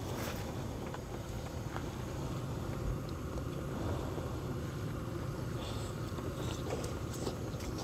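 Steady low rumbling background noise.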